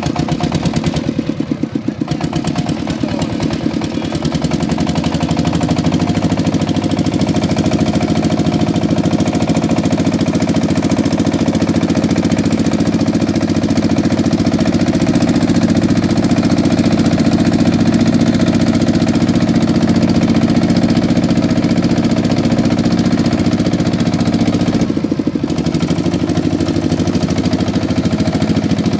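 A boat's motor running steadily, heard from on board. It picks up speed and gets louder about five seconds in, and eases off briefly about twenty-five seconds in before coming back up.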